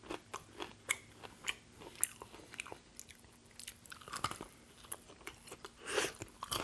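Crunching and chewing of a crispy breaded KFC hot wing being eaten: many small crackles of the breading, with a louder crunching bite about four seconds in and another near the end.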